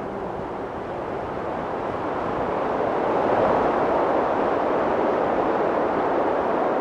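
A steady rushing noise, like wind, with no tones in it, swelling gently around the middle.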